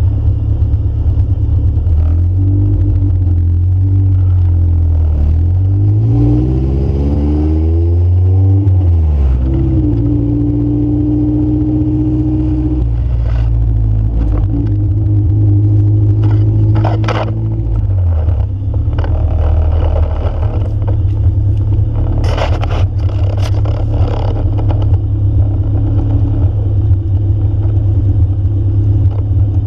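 Honda Civic EF sedan's engine heard from inside the cabin while driving. Its pitch climbs through a gear, drops at a shift, then holds steady before easing off, with road noise throughout and a few brief rattles later on.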